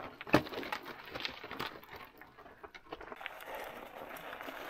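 Faint, irregular crunching and clicking of snow under mountain bike tyres and boots on a snowy trail, with one sharper click a little after the start.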